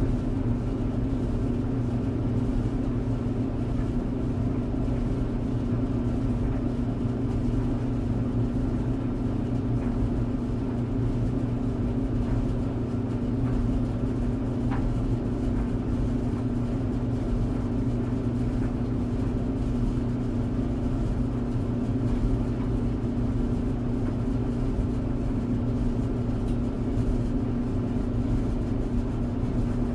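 Tumble clothes dryer running steadily: an even, unbroken hum and rumble of the motor and turning drum, with a few steady low tones under it.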